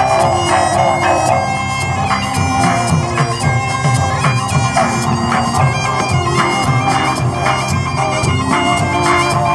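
Bagpipes playing a stepping melody over a steady drone, with live band drums beating underneath.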